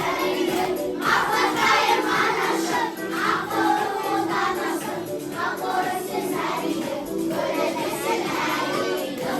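Music with singing voices, sounding like a group or choir, running steadily throughout.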